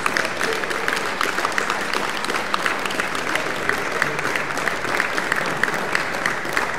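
Audience applauding steadily at the end of the performance, a dense, even clatter of many hands clapping.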